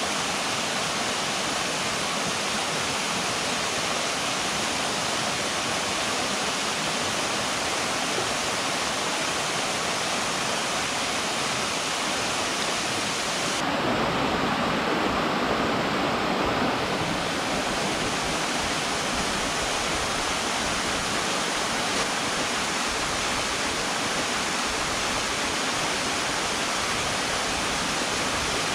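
Steady rush of flowing river water. About halfway through, the sound turns deeper and fuller for about three seconds, then returns to the same even rush.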